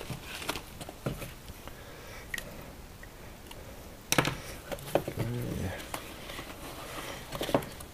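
Small cardboard boxes being handled and opened on a workbench: scattered taps, knocks and rustles, the loudest about four seconds in. A brief low voice-like sound follows a second later.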